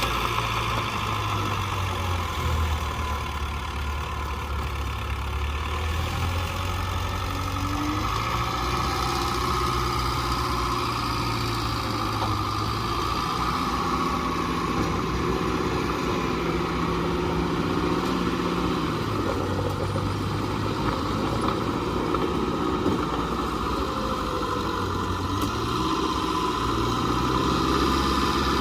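Small bulldozer's diesel engine running under varying load, its engine speed stepping up and down several times as it works.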